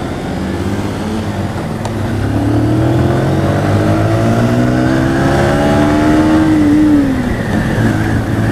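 Motorcycle engine under way, rising in pitch over several seconds as it accelerates, then falling away about seven seconds in as the throttle eases, over a steady rush of wind noise.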